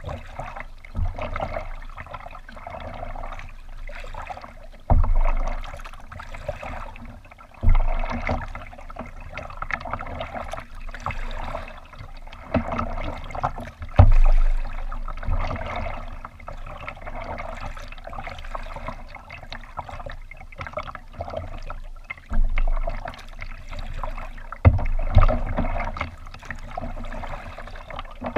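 Water splashing and lapping against a kayak's hull as it is paddled, swelling with louder splashes every few seconds. Occasional low thumps come with the louder surges.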